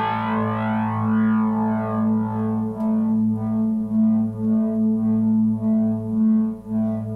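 Ambient guitar music played through effects: a steady, gently pulsing low drone with softer sustained notes above it, and no singing.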